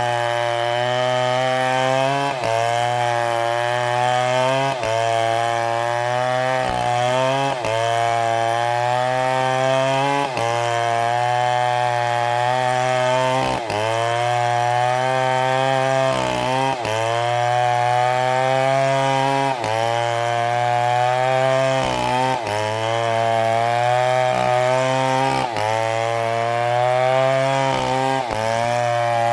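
Two-stroke STIHL chainsaw running at high revs and cutting wood. Its steady engine note dips briefly and recovers about every three seconds as the chain bites under load.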